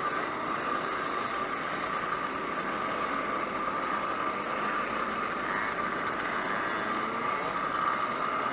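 Many small two-stroke moped engines running and idling together in a steady, unbroken mix, with a constant whine on top.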